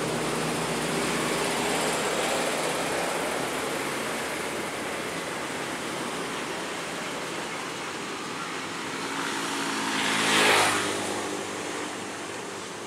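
Road traffic: a vehicle engine running and fading away, then another vehicle passing close by about ten seconds in, loudest as it goes past.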